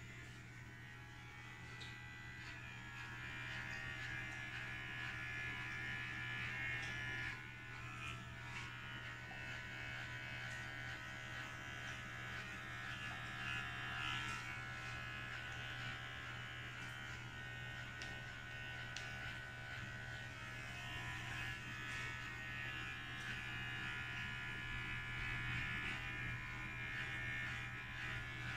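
Electric hair clipper buzzing steadily while trimming the nape of short hair, its buzz dipping and swelling a little as it is worked through the hair.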